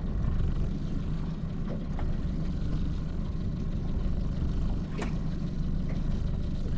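Small fishing boat's engine running steadily with a low rumble, with a sharp click about five seconds in.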